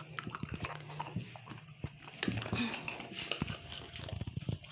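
A dachshund crunching a hard baked bone-shaped dog biscuit: a run of short crisp cracks and crunches, coming thickest in the second half.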